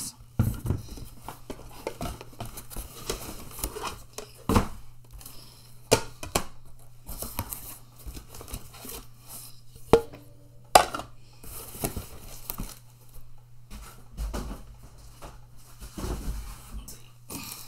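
White ceramic plates and bowls clinking and knocking together as they are lifted out of a cardboard box and stacked, with rustling of the box and its packing. Two sharp clinks midway are the loudest sounds.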